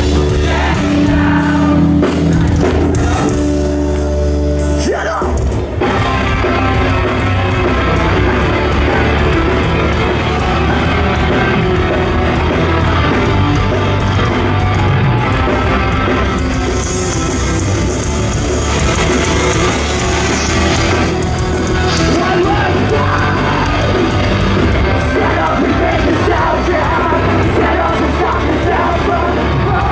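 A rock band playing live with a singer, recorded from inside the crowd in a large hall. Long held notes give way about five seconds in to the full band playing.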